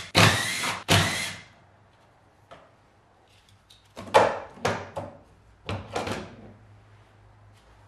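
Cordless drill-driver running in short bursts, backing out the bolts of a car's windscreen wiper mechanism, in the first second or so. About four seconds in come three short metallic clunks and rattles as the wiper motor and linkage are worked loose and pulled out.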